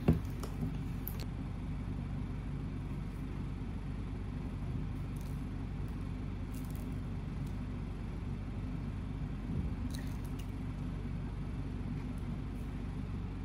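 Steady low hum of room noise, with a few faint light clicks here and there.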